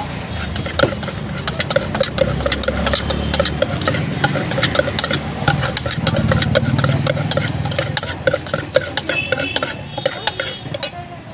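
A steel spoon stirring sweet corn in a steel bowl, scraping and clinking against the sides in quick, irregular strokes. A low engine hum runs underneath, swelling twice.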